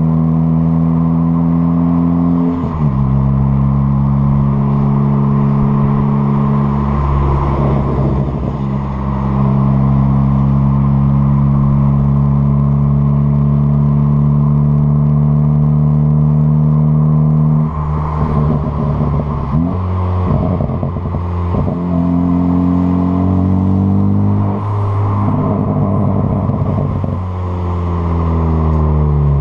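Exhaust of a 2013 Ford Focus ST's turbocharged 2.0-litre four-cylinder, running a big EFR 6758 turbo and a catless downpipe, held at steady revs for long stretches with a few shifts in pitch. Scattered crackling from the exhaust comes in patches, the sign of a crackle (pops-and-bangs) tune, and the revs fall away at the end.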